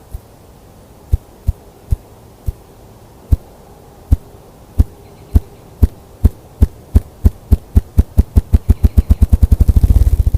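A bird's drumming: deep thumps, about a second apart at first, speeding up steadily into a fast roll near the end.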